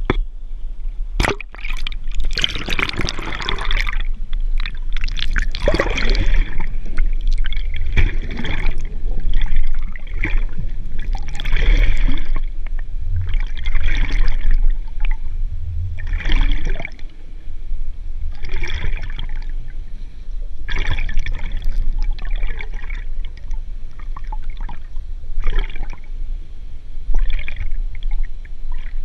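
Water sloshing and bubbling around a camera held underwater, coming in surges every two to three seconds over a steady low rumble.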